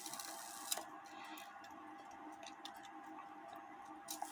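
Antique 1880 Albert Flieg cuckoo clock movement ticking faintly, with a sharper click about three-quarters of a second in.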